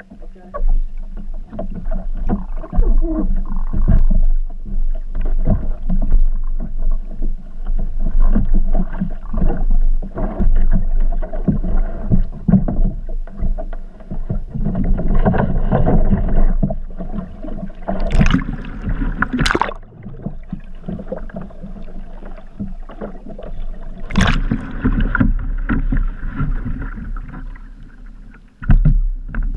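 Water sloshing and bumping around a capsized sea kayak's bow, heard underwater through an action camera's housing, with a few sharp knocks as the paddler climbs back into the cockpit. Near the end the kayak rolls upright and the sound turns to splashing at the surface.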